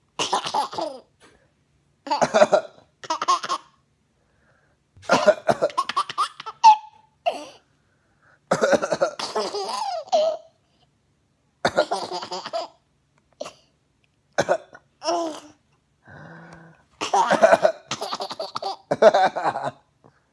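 A person laughing in repeated fits broken up by coughs, with short silent pauses between the outbursts.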